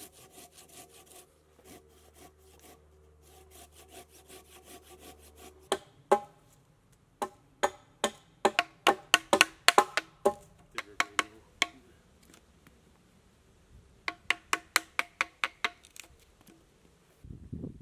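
Hand saw rasping through a green log in short strokes, then a chisel struck with sharp, evenly spaced blows, about three a second in two runs, chopping out a notch in the log.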